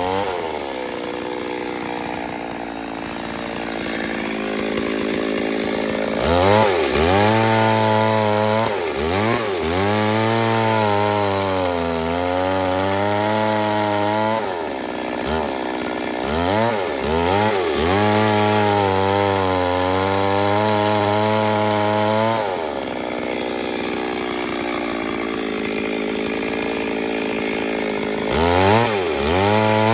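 Two-stroke chainsaw cutting wood at high revs, its engine pitch dipping and recovering again and again as the chain loads up in the cut.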